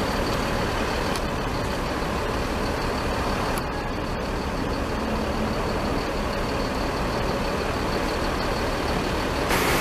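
Steady running noise of a large diesel vehicle close by, with no distinct events; it gets a little louder just before the end.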